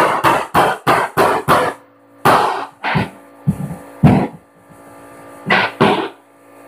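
Mallet blows knocking hardwood floorboards tight: a quick run of about three strikes a second, then a handful of separate, heavier strikes, the loudest about four seconds in.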